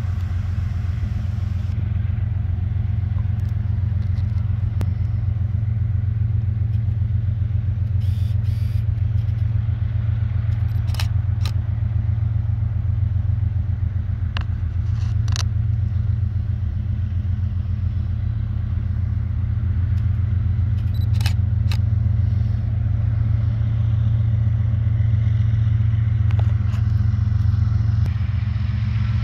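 Diesel locomotive engine of an Iowa Interstate freight train giving a steady low rumble, slowly getting a little louder toward the end, with a few scattered sharp clicks.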